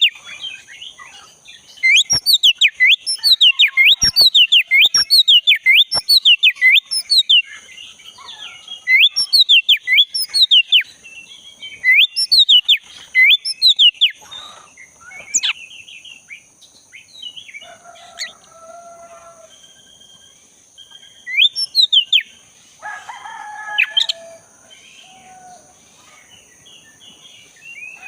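Oriental magpie-robin (black-breasted kacer) singing loud, fast runs of sweeping whistled notes in several bursts with pauses between. Some lower calls come in around the middle and again later. A steady high-pitched hum joins about a third of the way through.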